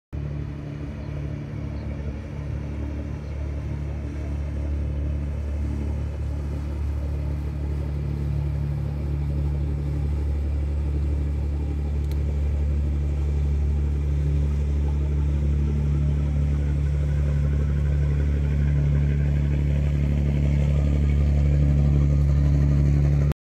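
A steady, low mechanical hum made of several held low tones, slowly growing louder, then cutting off abruptly at the end.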